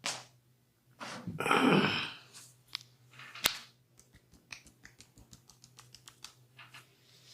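Close-up massage sounds of hands working on a person's body: a loud rubbing swish, then a single sharp crack, then a run of small quick clicks, a few a second.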